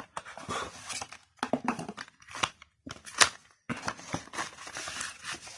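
Cardboard and paper from a smartphone's retail box being handled: irregular bursts of rustling and scraping with sharp clicks, as the packet of manuals and warranty card is taken out and opened.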